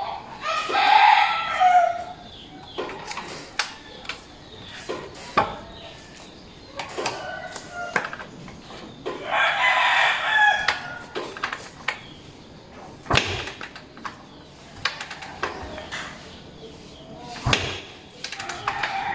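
A rooster crowing twice, about a second in and again around nine seconds in. Scattered clicks and knocks sound between the crows, with two stronger thumps near the end.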